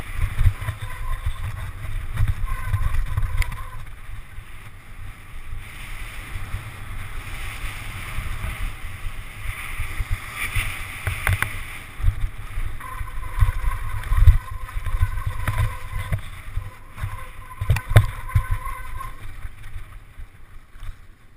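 Wind buffeting a helmet camera's microphone on a fast downhill mountain bike descent, with the rattle of the bike and tyres over the rough dirt track and a few sharp knocks from bumps.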